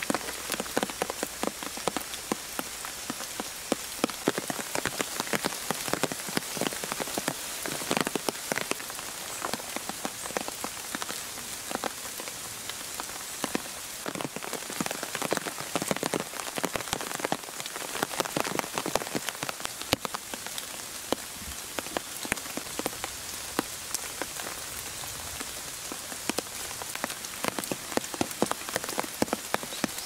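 Rain falling in a forest: a steady hiss with many scattered, irregular drop hits on leaves and the forest floor.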